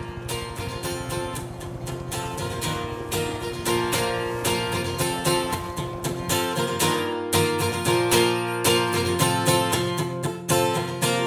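Background music: a strummed acoustic guitar in a quick, even rhythm, growing louder over the first few seconds.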